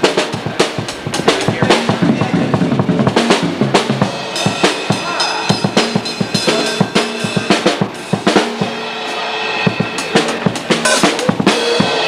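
An acoustic drum kit being played, a dense, unbroken run of drum hits with the cymbals ringing between them.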